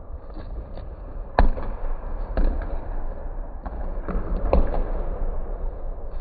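Basketballs bouncing on a hardwood gym floor, a scatter of sharp thuds at irregular intervals that echo around the gym, the loudest about a second and a half in.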